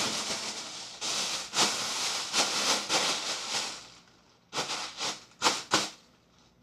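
Plastic zip-top bag being handled and rubbed, a steady crinkling rustle, then a few short, sharp crinkles in the last couple of seconds.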